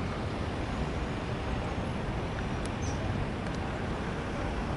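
Steady outdoor background noise at the waterfront, heaviest in the low range, with no distinct event apart from two faint ticks in the middle.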